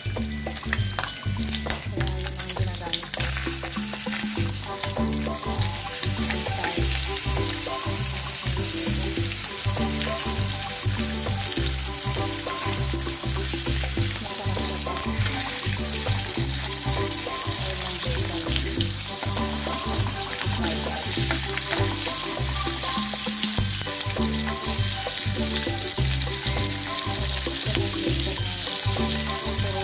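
Bacon strips sizzling steadily in hot oil in a wok, over background music with a steady, rhythmic bass line.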